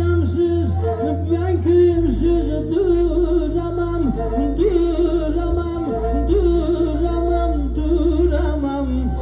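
Music with a singing voice carrying a wavering, ornamented melody over sustained low bass notes that shift every few seconds.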